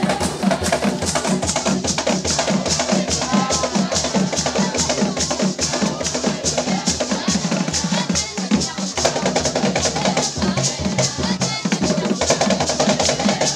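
Traditional drumming playing a fast, steady beat of rapid even strokes to accompany a dance, with voices faintly over it.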